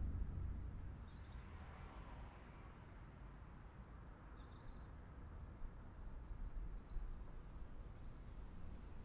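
Faint ambience: a steady low rumble that eases down over the first second, with scattered brief high-pitched chirps.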